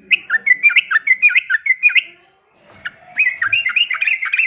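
Trucukan (sooty-headed bulbul) singing in two quick bursts of rapid, swooping warbled notes, with a pause of about a second between them.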